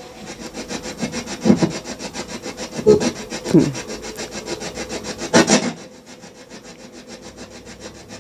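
Spirit box sweeping through radio channels: a fast, even chopping of static at about ten chops a second, with four short snatches of broadcast voice breaking through. The sweep drops quieter about six seconds in.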